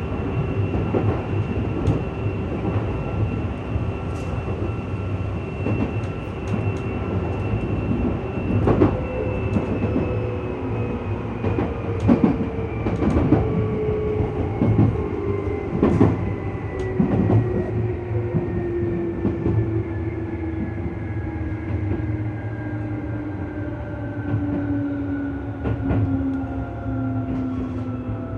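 Tokyu 8500 series electric train running, its traction motor whine falling slowly in pitch as the train slows, over a steady low hum. Wheels click sharply over rail joints now and then.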